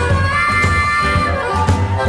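Instrumental passage of a blues song: the band plays on with no vocals, a held, bending lead line over a steady bass.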